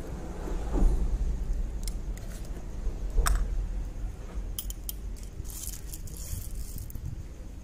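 A metal spoon scooping roasted coffee beans out of a glass jar: scattered clinks of spoon on glass and beans rattling, coming thicker from about four and a half seconds in, over a low steady rumble.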